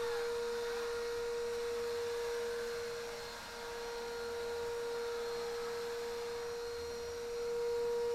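Electric machine motor running at a steady speed, giving a steady high-pitched whine on one even pitch.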